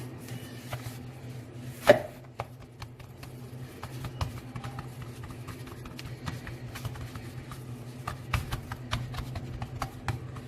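Hands pressing and spreading pizza dough in a baking tray: irregular light taps and knocks of fingers and dough against the tray, with one louder knock about two seconds in.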